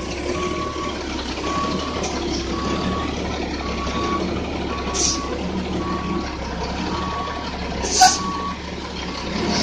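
Big truck reversing, its backup alarm beeping about once a second over the engine's steady running. A brief sharp noise sounds about eight seconds in.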